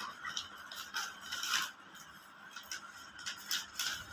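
Packaging being handled and opened during an unboxing: short scrapes and rustles come in irregular bursts, busiest near the end.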